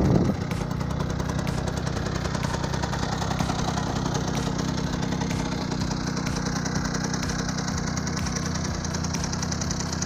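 Small engine of a vintage moped idling steadily, slightly louder for a moment at the very start.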